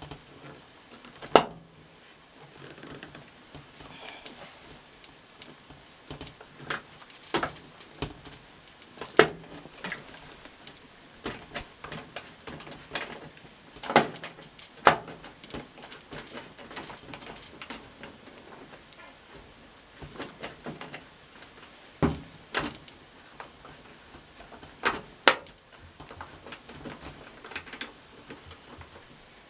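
Scattered clicks and knocks of hands and tools working on a front-load washing machine's cabinet as the last screws of its front panel are taken out, with a few sharper knocks standing out.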